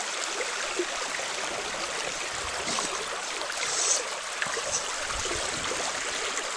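Small spring creek running steadily, an even rush of flowing water.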